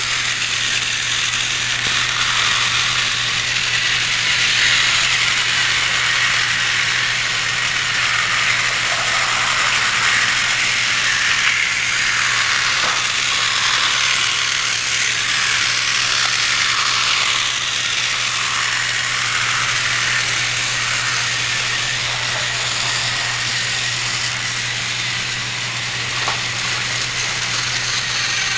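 Battery-operated TrackMaster toy train engine running along plastic track: a steady whirring, rattling drone of its small geared motor and wheels, with a steady low hum underneath.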